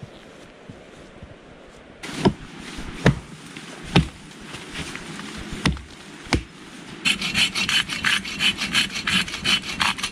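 A hatchet chopping into a fallen tree trunk: five sharp blows over about four seconds. From about seven seconds in comes a rapid run of rasping strokes, a hand saw cutting the log.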